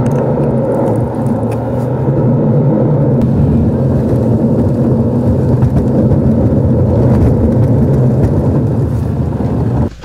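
A car driving at a steady speed: a loud, even low drone of engine and road noise.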